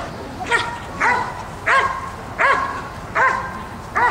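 Working protection dog barking at a helper in a bite suit: loud, evenly spaced barks, about one every two-thirds of a second, the steady guarding bark of a dog holding its decoy.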